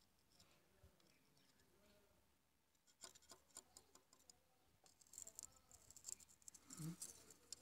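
Near silence, with faint scratching and light clicks starting about three seconds in and getting busier near the end: hands handling parts around the rocker arms of a diesel engine.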